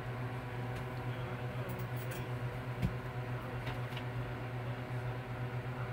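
A steady low mechanical hum, with a few faint clicks and a short soft thump about three seconds in.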